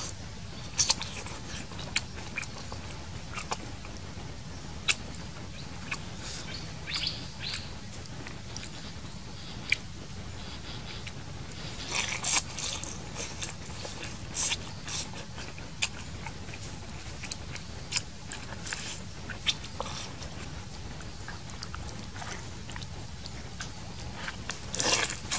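A person eating noodles with chopsticks from a bowl: short, irregular slurps and chewing smacks, with a louder run of them about twelve seconds in.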